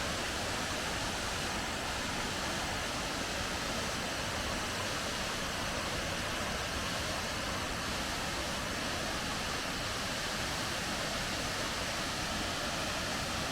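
Large mountain waterfall crashing down, a steady, unbroken rush of falling water.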